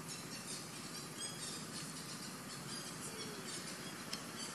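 Short, high-pitched chirps from a small animal, many in quick irregular succession, over a steady background hiss.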